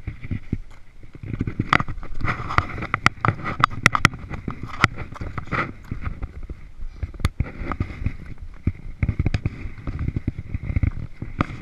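Gloved hands and boots scuffing and knocking on bare rock while scrambling up a slab, with many irregular sharp clicks and a low rumble of gear and clothing rubbing against the body-mounted camera.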